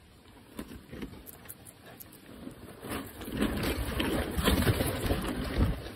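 Guinea pig biting and chewing a slice of tomato up close: rapid munching, louder from about three seconds in.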